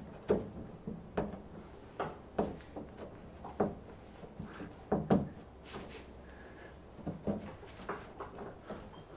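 A Chevy Lumina Z34 hood vent being pressed and worked into a cut opening in a Jeep Cherokee XJ's hood as a trial fit, knocking against the edges of the opening. An irregular series of sharp knocks and clicks.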